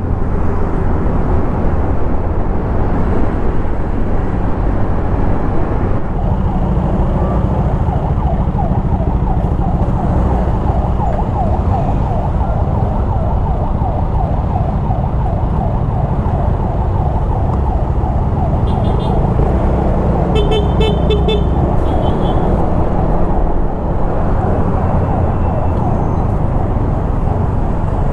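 Steady wind and road rumble on a Honda Click scooter's on-board camera microphone, with the scooter running and city traffic around it. About two-thirds of the way through, an emergency vehicle's siren gives a few short high-pitched blips.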